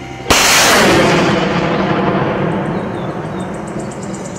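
A rocket fired from a truck-mounted multiple rocket launcher. A sudden blast comes about a third of a second in, followed by a long rushing noise that slowly fades.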